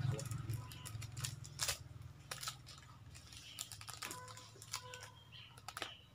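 Plastic food wrappers crinkling and rustling as they are handled and opened, in an irregular scatter of sharp crackles.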